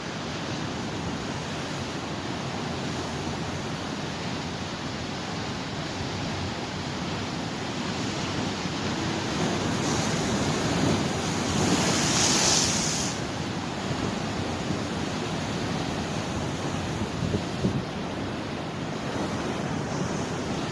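Mediterranean sea waves washing onto the shore: a steady surf hiss that swells into a louder wave wash about ten to thirteen seconds in.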